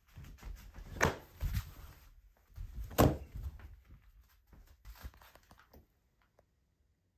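Close handling sounds on a tatami floor: a string of knocks and thumps with cloth rustling as a white cloth is flung about and dropped. The two loudest, sharp knocks come about one and three seconds in, and the sounds die away near the end.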